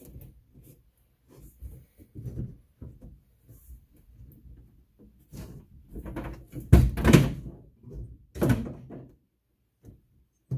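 A run of light knocks and clunks, with two louder thumps about seven and eight and a half seconds in.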